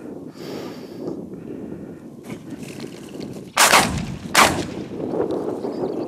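Two shotgun shots just under a second apart, each a sharp report with a short ringing tail, fired at partridges.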